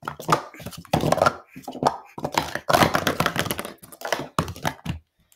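Plastic Speed Stacks sport-stacking cups clattering as they are rapidly stacked up and down, a quick run of sharp plastic clicks that stops about five seconds in.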